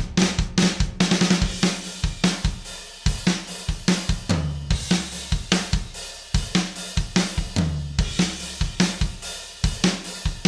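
Sampled acoustic drum kit from the Stockholm SDX for Superior Drummer 3 playing a groove, with kick, snare, hi-hats and cymbals struck several times a second.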